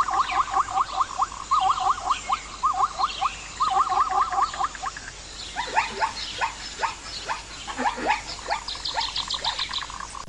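Animal calls: a fast run of short repeated calls, about six a second, then from about five seconds in a different series of steeply falling calls, with a quick high trill near the end.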